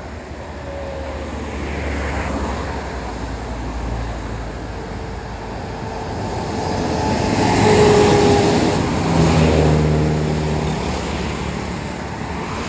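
Road traffic passing close by: vehicle engines and tyre noise rise and fall as they go past, the loudest vehicle passing about eight seconds in.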